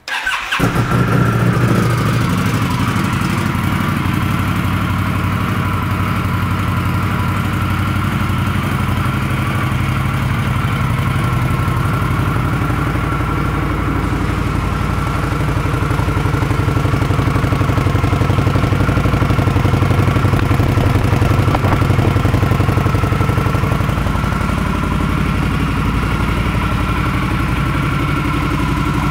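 A 2015 Indian Scout's liquid-cooled 1133 cc V-twin starts up and catches at once, then idles steadily.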